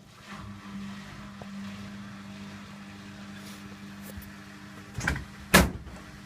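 Candy Aquamatic 1000T washing machine's drain pump running with a steady hum while the machine drains. Two sharp knocks sound about five seconds in.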